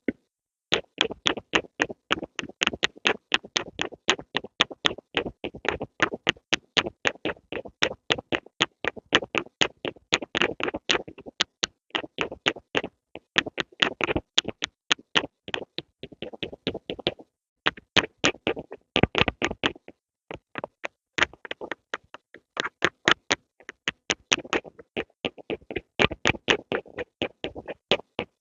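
Close-up pencil strokes: quick, repeated short strokes, several a second, with brief pauses about 17 and 20 seconds in.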